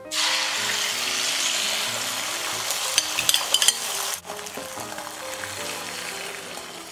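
Beaten eggs poured into a hot frying pan of olive oil, sizzling loudly the moment they hit the oil, with a few quick clinks of a fork scraping the bowl about three seconds in. The sizzle drops suddenly about four seconds in and goes on more quietly as the egg settles.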